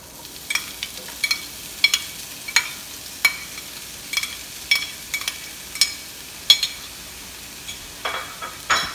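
Chopped onions frying in hot vegetable oil, sizzling steadily from the moment they go in, while a utensil stirs them and knocks against the pan about once or twice a second with a ringing metallic clink. Near the end come two longer scrapes across the pan.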